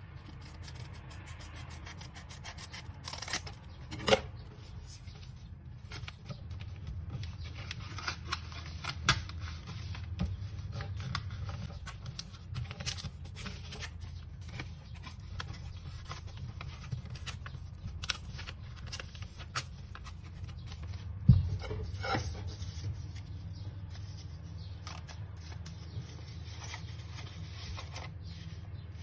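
A sheet of paper is handled at close range. It is snipped with scissors near the start, then folded and creased by hand, with rustling, rubbing and sharp crinkles throughout. A steady low hum runs underneath, and a sudden knock comes about two thirds of the way through.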